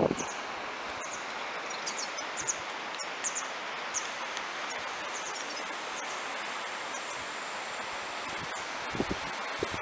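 Outdoor ambience: a steady hiss with small birds chirping in short, high bursts during the first half. A couple of soft knocks come near the end.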